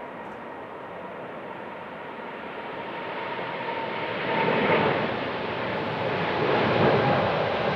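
Jet airliner's engines growing steadily louder as the aircraft approaches, a dense roar with a faint steady whine in it.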